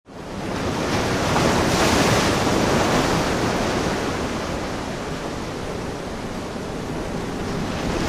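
Ocean surf breaking, with wind, rising quickly from silence at the start and swelling about two seconds in.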